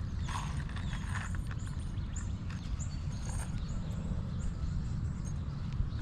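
Wind rumbling on the microphone, with a few light taps and scrapes from handling the shingle and faint high chirps.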